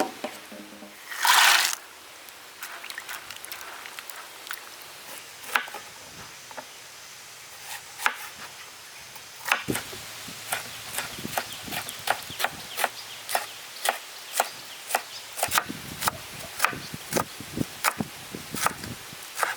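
Knife chopping on a wooden cutting board, with scattered strokes at first and then a steady run of about two strokes a second from about ten seconds in. A short rushing noise comes about a second in.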